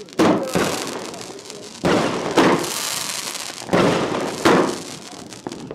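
Fireworks going off in three pairs of sharp bangs, a pair every couple of seconds, each bang trailing off in a hiss.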